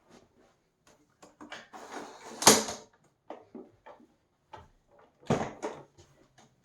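Scattered clicks and knocks of a vacuum cleaner being handled, with one loud knock about two and a half seconds in and a few more together just after five seconds; the motor is not running.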